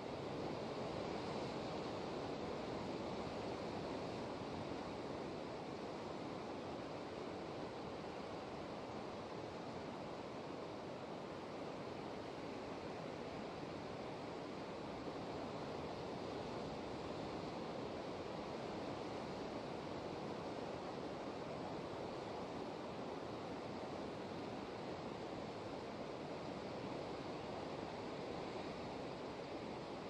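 Distant ocean surf breaking on a rocky shore below a cliff: a steady wash of noise that swells slightly about a second or two in, then holds.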